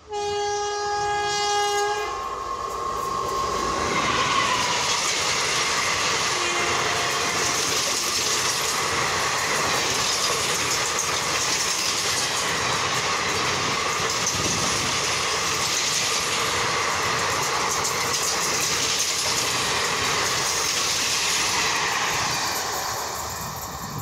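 A WAP-4 electric locomotive's horn blasts for about two seconds. Then the express train passes at speed, about 110 km/h: a loud, steady rush of coaches and wheels on the rails, which fades near the end as the train draws away.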